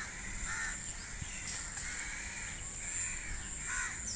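Crows cawing, several separate calls, over a steady high-pitched tone, recorded through a phone's built-in microphone.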